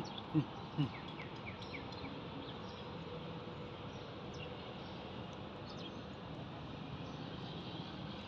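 Steady outdoor rural background noise with a faint insect-like buzz, and a few short, quick bird chirps about a second in.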